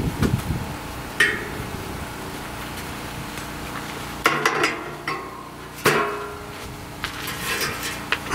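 Sharp clicks and clinks from a measuring tape being handled while a buck's antlers are measured: one about a second in, a quick cluster around the middle, and another a moment later.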